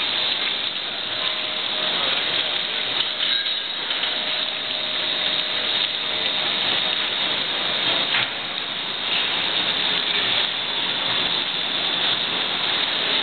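Industrial primary shredder (a Lindner Jupiter) shredding mixed household waste under load: a steady dense crunching and tearing noise, with a couple of sharper cracks as pieces break.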